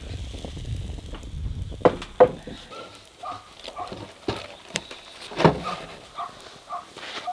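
Two sharp metallic knocks as the pan of pancake batter is set down on the rocket stove, then a few more scattered knocks. From about halfway through come short, repeated animal calls.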